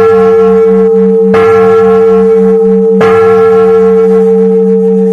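Huge bell, already ringing, struck twice more about a second and a half apart. Each strike rings on with a strong steady hum and a lower tone that pulses.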